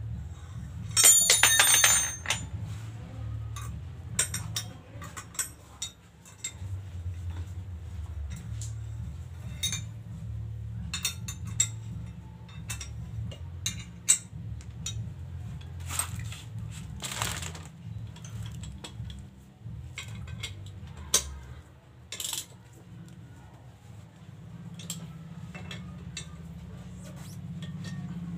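Metal tools and motorcycle parts clinking and knocking as the rear wheel and sprocket are worked on by hand, with one loud ringing metallic clang about a second in. A low steady hum runs underneath.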